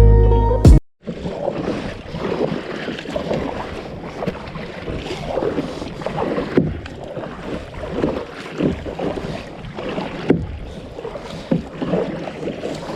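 Kayak out on the water: irregular water splashes and knocks against the hull, over steady wind noise on the microphone.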